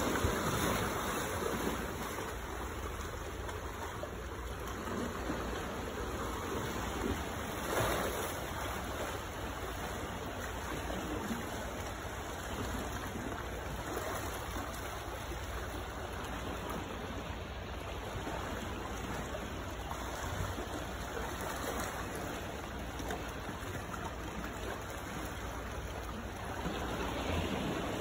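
Sea water washing among boulders on a rocky shore, a steady rushing with small swells of surge.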